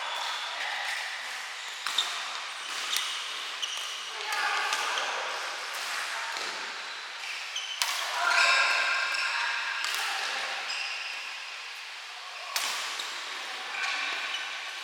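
Badminton rally: sharp racket-on-shuttlecock hits at irregular intervals, mixed with short high squeaks, over a steady hiss of rain.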